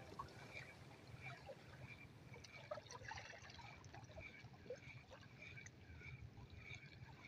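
Near silence: faint sea water trickling and lapping against shoreline rocks, with small scattered ticks.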